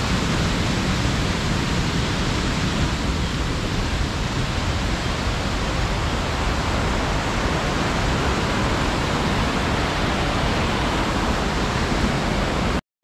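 Fast-flowing burn and waterfalls rushing steadily, running fierce with white water. The sound cuts off suddenly near the end.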